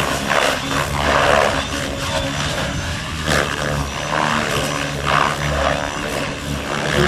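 Main rotor of a Compass 6HV electric model helicopter flying hard 3D close by. The blade noise swells and fades about once a second as the collective pitch flips back and forth between positive and negative.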